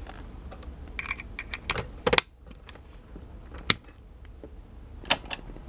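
Handling clicks as cables and plugs are pushed into the RCA jacks of a small amplifier enclosure: a string of separate sharp clicks and knocks, the loudest about two seconds in, near four seconds in and about five seconds in.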